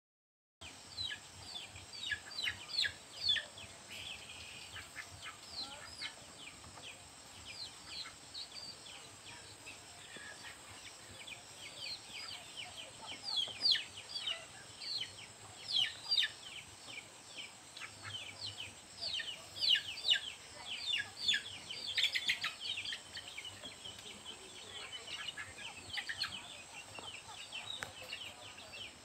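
Chickens calling: many short, high chirps that each slide downward in pitch, coming in quick loose bursts, with the busiest stretches about halfway through and again a few seconds later.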